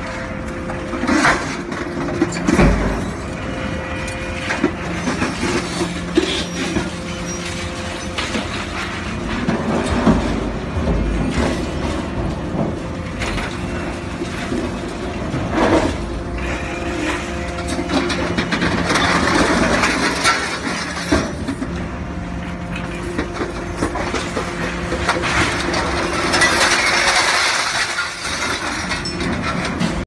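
Excavator and hydraulic container shear working scrap metal: a steady engine and hydraulic hum, with loud metal clanks and crashes at irregular moments as the grapple handles scrap in the shear's hopper, and two longer, louder noisy spells near the middle and towards the end.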